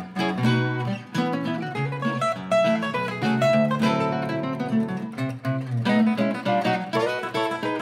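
Two acoustic archtop guitars, a 1936 Epiphone De Luxe and a Sumi archtop, playing a swing-era jazz guitar duet: a busy stream of picked notes and chords over a moving bass line.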